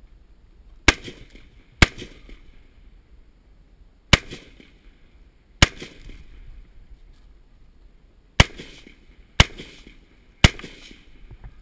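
Seven single shots from an H&K MR223 semi-automatic rifle chambered in .223, fired one at a time at uneven spacing, some in quick pairs about a second apart, each with a short echo.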